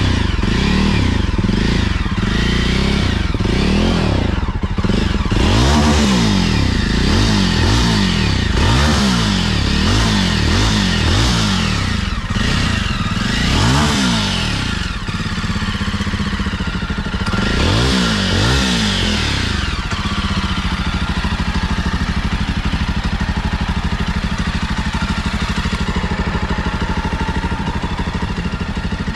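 Jawa 42 Bobber's 334 cc single-cylinder engine heard at the exhaust, revved in a string of quick throttle blips, then two longer revs, before settling to a steady idle for the last third.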